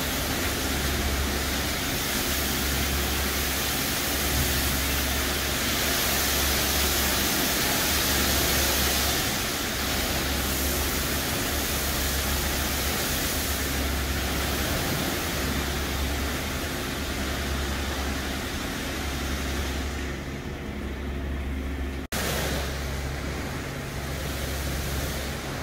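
Water spray hissing and splashing on a semi-trailer in a drive-through truck wash, over a low machinery rumble that swells and eases every second or two. There is a sudden brief dropout near the end.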